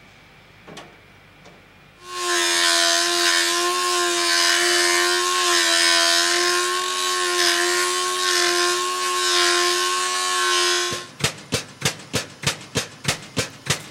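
Angle grinder grinding a welded flange joint on a steel pipe: it starts about two seconds in and runs with a steady high whine for about nine seconds, then stops. It is followed by a fast regular knocking, about four strokes a second, from the pipe pressure-test rig.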